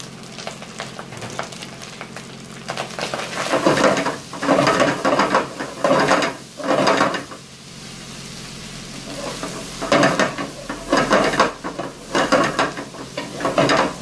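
Wooden spatula stirring and scraping rice in a pot over a gas flame, with the rice and vegetables sizzling as they fry. The stirring comes in rough bursts from about three seconds in, pauses for a couple of seconds past the middle, then starts again.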